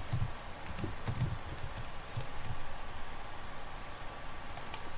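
Computer keyboard typing: scattered key clicks in the first second and a half, then fewer, with a few more strokes near the end.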